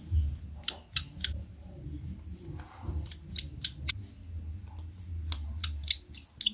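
Small sharp clicks and taps of a precision screwdriver and phone parts being handled while an opened smartphone is put back together, coming irregularly, with a louder click at the very end. A low steady hum runs underneath.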